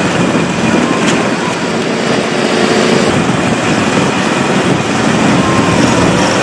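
Tractor engine running steadily, a loud, even noise with no breaks.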